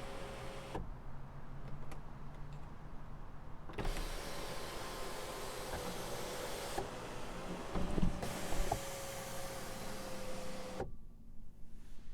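A car's small electric motor whining steadily, of the kind that drives a power window. It stops with a click about a second in, starts again with a click about four seconds in, and runs until it clicks off near the end.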